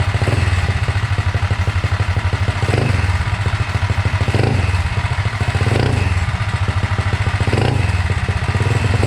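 Rebuilt Tillotson 263cc single-cylinder four-stroke engine idling, blipped about every second and a half. Each time the revs rise briefly and drop straight back to idle. The freshly rejetted carburettor gives it a snappy response.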